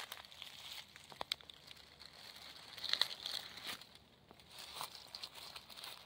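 Dry leaf litter and twigs crackling and rustling underfoot and under a hand as a person steps through undergrowth and crouches to the ground, with the loudest crunchy rustle about halfway through.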